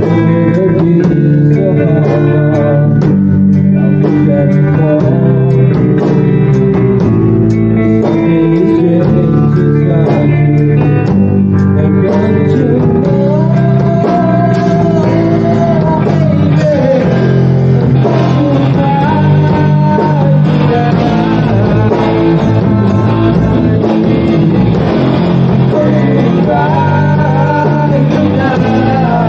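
Guitar-led rock or blues music, loud and continuous, with a bending melody line from about halfway through that may be singing or lead guitar.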